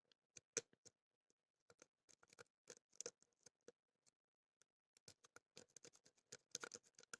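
Lock pick and tension wrench working inside a HUGO brass padlock: faint, scattered small clicks and scratches of the pick on the pins, coming a little closer together near the end.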